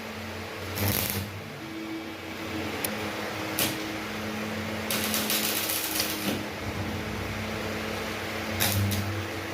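Workshop machinery running with a steady electrical hum, broken by several short bursts of hissing, crackling noise about a second long.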